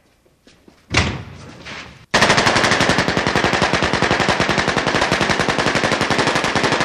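Machine-gun fire: one long unbroken burst of rapid, evenly spaced shots beginning about two seconds in. A single sudden bang comes about a second in.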